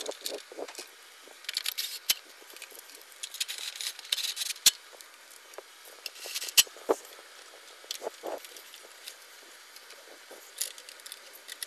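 Hands fitting small parts back onto a lawnmower engine during reassembly: scattered sharp clicks and taps of parts meeting, among softer scraping and rustling.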